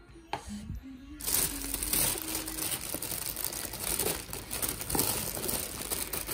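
Thin plastic carrier bag rustling and crinkling as a hand rummages inside it among takeout containers, starting about a second in.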